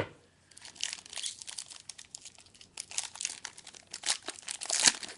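Wrapper of a trading card pack crinkling and tearing as it is opened by hand, with many quick crackles and one louder snap near the end.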